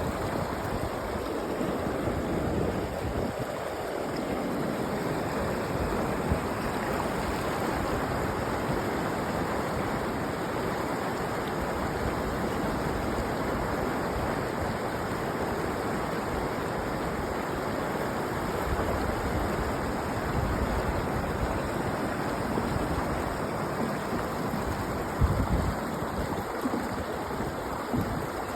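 Mountain river flowing, a steady rush of water over rocks, with a few low gusts of wind on the microphone near the end.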